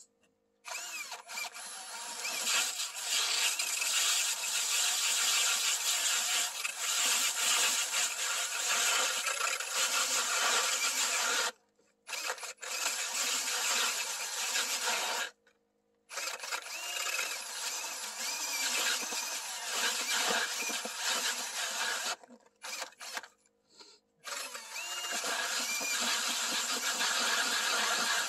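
Cordless drill driving an ice auger, boring a hole through lake ice: the motor whirs and the blades grind through the ice in long runs. It stops briefly twice, then cuts in and out in quick bursts before one last long run.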